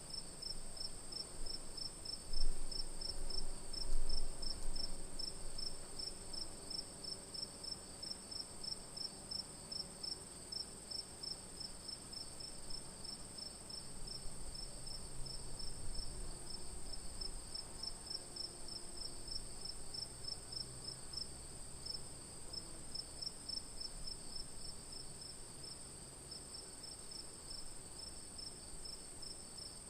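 Crickets chirping at night: a steady high trill under a regular chirp pulsing about three times a second. Two brief low bumps come about two and four seconds in.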